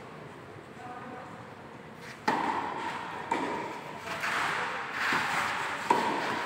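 Tennis balls struck by rackets during a doubles rally: a few sharp hits with a short ping, the loudest about two seconds in and near the end, echoing in a large indoor hall.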